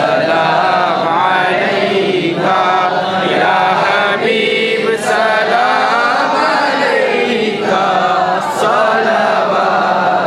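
A group of voices chanting together without a break, a melodic devotional chant.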